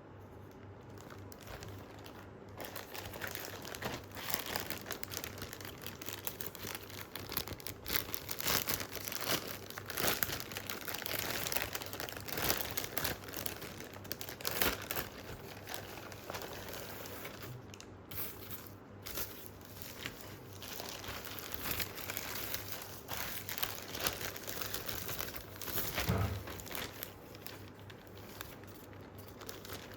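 Packaging and fabric being handled and unwrapped: irregular crinkling and rustling with sharp crackles. A dull thump comes near the end.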